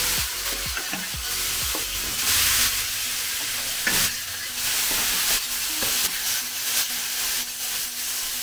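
Cubes of raw pork belly sizzling in a little hot oil in a wok while they are stirred and turned with a wooden spatula. The spatula scrapes and knocks against the pan many times, most busily in the first couple of seconds and again about four seconds in. The pork is being fried so that its fat cooks and the pieces turn golden brown.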